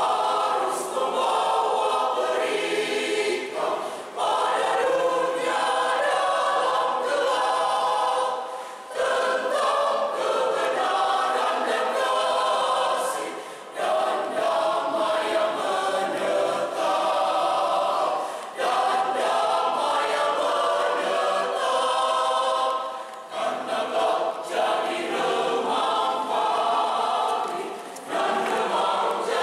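Mixed choir of men's and women's voices singing, with brief breaks between phrases every four to five seconds.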